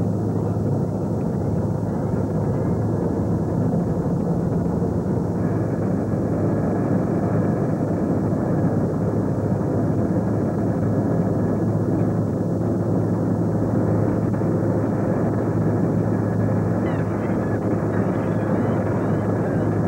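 A ferry's engines droning steadily under way, a constant low hum under rushing wind on the microphone.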